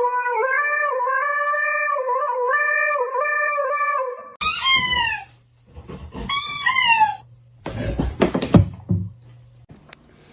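A dog howling: one long, held, slightly wavering howl, then two short howls that fall steeply in pitch. A brief clatter of handling noise follows near the end.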